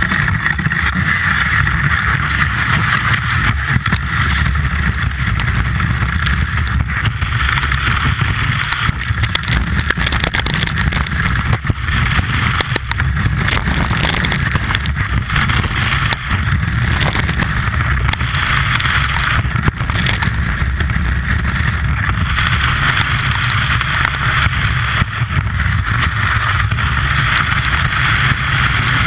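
Telemark skis running over packed snow, heard through a camera mounted on the ski: a steady rushing hiss and rumble of the ski base and edges on the snow.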